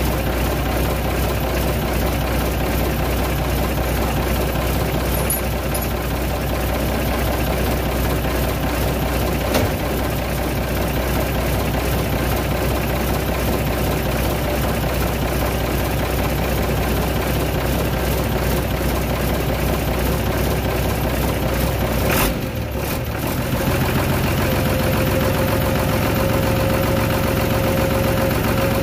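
Freshly semi-overhauled Isuzu 6BG1 inline-six diesel engine idling steadily. About 22 seconds in there is a sharp click and a brief dip, after which it runs on with a slightly changed note and a steady whine.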